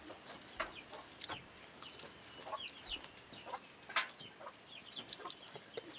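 Chickens clucking with chicks peeping: scattered short, high calls and lower clucks, irregular, with a sharper call about four seconds in.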